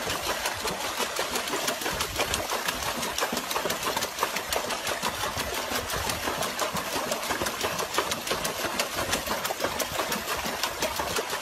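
Dog pawing fast at the water in a plastic tub, a continuous rapid splashing and slapping of water.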